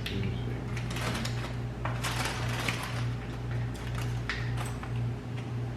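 Eating sounds at a takeout meal: short rustles and crinkles of food packaging and chewing, over a steady low electrical hum.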